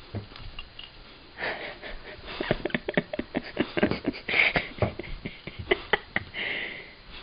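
Bullmastiff sniffing and snuffling with its nose pushed into the bedding: breathy sniffs mixed with a run of quick clicks and rustles.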